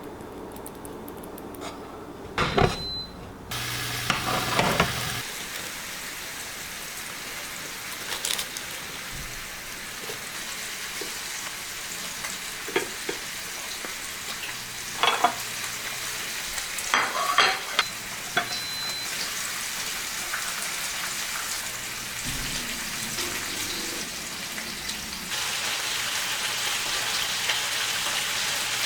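Food frying in a pan with a steady sizzle, with occasional clinks and knocks of a utensil against the pan. The sizzle grows louder about three and a half seconds in and again near the end.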